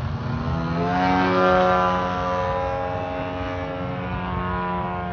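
Radio-controlled model airplane's motor and propeller running in flight, rising in pitch about a second in and loudest shortly after, then holding a steady tone.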